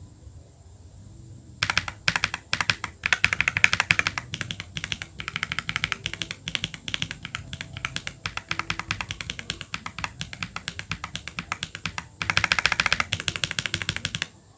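Keychron V6 Max gasket-mount mechanical keyboard with Gateron Jupiter Banana tactile switches and low-profile PBT double-shot keycaps, being typed on as a sound test. Steady key clacks begin about a second and a half in and speed up into a fast run near the end.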